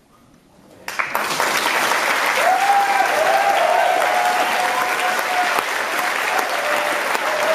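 Audience applause breaking out suddenly about a second in and continuing steadily.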